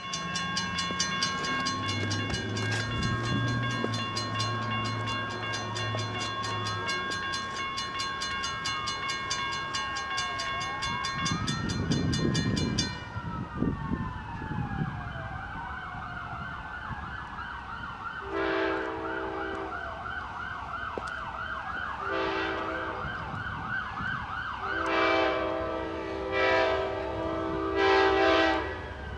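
Grade-crossing bell ringing rapidly for the first dozen seconds, then stopping. Over it a siren wails, switching to a faster yelp in the second half. From about two-thirds of the way in, an approaching train's horn sounds four blasts: long, short, long, long.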